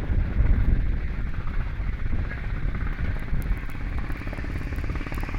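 A boat's engine running steadily with a fast, even low throb.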